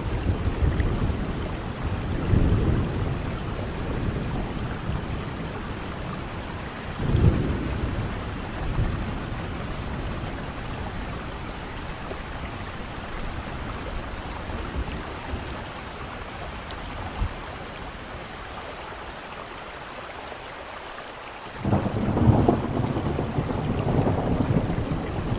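Steady heavy rain with thunder rumbling. Low rolls of thunder come in the first few seconds and again about seven seconds in, the storm eases for a while, then rumbling returns suddenly near the end.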